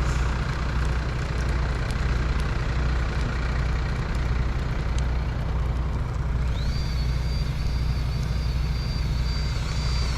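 Truck engine idling, driving the hydraulic pump for a truck-mounted boom. About two-thirds of the way in, a high, steady squeak starts up and holds, a squeak the operator can't place but assumes comes from the boom.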